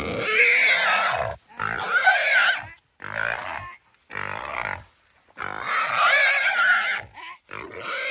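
A caught feral hog squealing in about seven loud, rough bouts of a second or so, each broken by a short pause, its pitch wavering.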